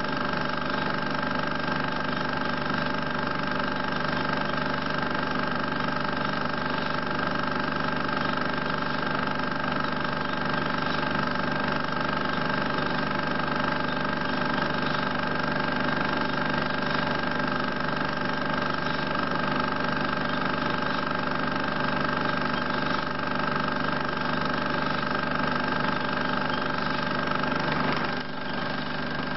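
16 mm film projector running: a steady mechanical hum with several constant tones from its motor and film transport, briefly dipping near the end.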